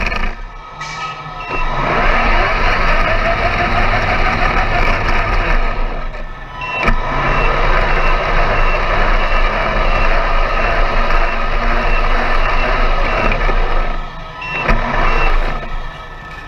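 Small engines of radio-controlled model racing cars running on the track, the sound dropping away briefly a few times. Through the middle there is a high beep repeating about twice a second.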